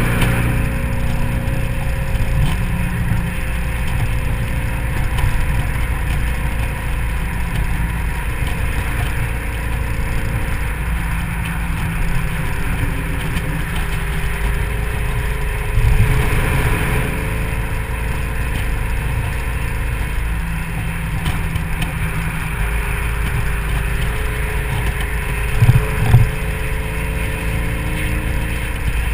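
2003 SVT Mustang Cobra's supercharged 4.6-litre V8 cruising at freeway speed, heard from the open cabin with the top down, mixed with wind and road noise; the engine note shifts up and down. A brief louder swell comes about halfway through and two sharp thumps near the end.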